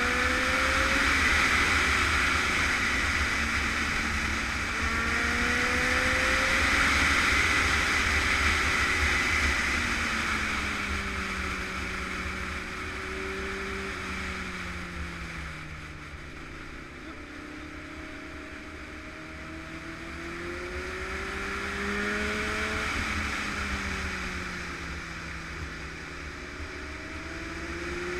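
Sport motorcycle engine heard on board while riding, with loud wind noise on the microphone. The engine pitch climbs in short steps at first, falls away through the middle as the bike slows, and picks up again in the last third.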